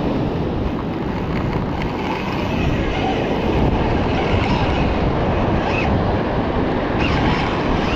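Ocean surf washing against a rocky shore, with wind buffeting the microphone in a steady, heavy rumble.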